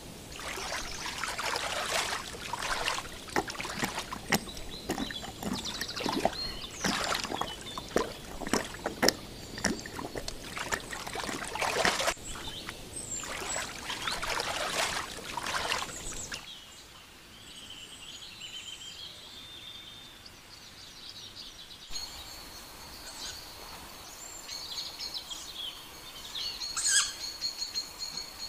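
Water splashing and sloshing in many short irregular strokes as a tiger wades through a pond, for about the first sixteen seconds. Then small birds chirp and sing high whistled phrases over a quieter background, with a louder chirp near the end.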